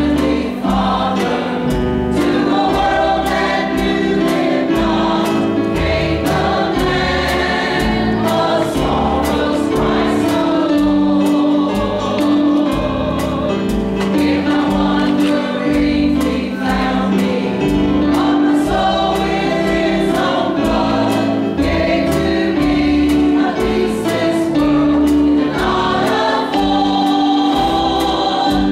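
Mixed choir of men's and women's voices singing a gospel song, accompanied by a drum kit keeping a steady beat on cymbals and drums.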